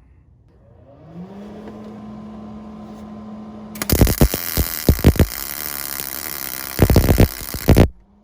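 MIG welding arc from a Millermatic 211 crackling steadily for about four seconds, with several sharp pops, as weld is built up on a steel exhaust manifold stud. Before the arc strikes, a steady hum starts about a second in with a brief rising pitch, and it carries on after the arc stops.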